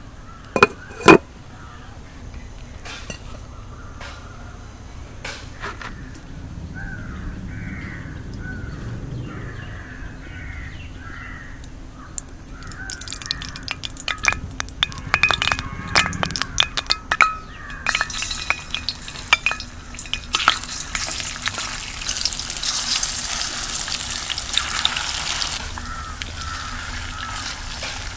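Murrel fish frying in hot oil in a pan: a hiss of sizzling that builds about two-thirds of the way in, with a utensil clicking and scraping in the pan just before and during it. Earlier, two sharp knocks near the start and a bird calling in a run of short repeated calls.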